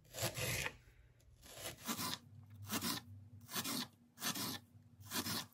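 A knife slicing a sweet onion thin, about seven cuts spaced a little under a second apart.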